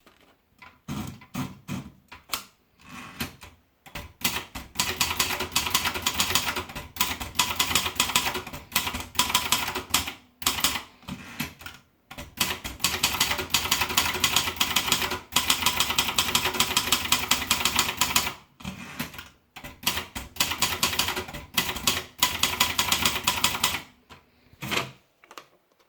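Silver Reed 200 typewriter being typed on: fast, continuous keystrokes in long bursts with a few short pauses, stopping shortly before the end.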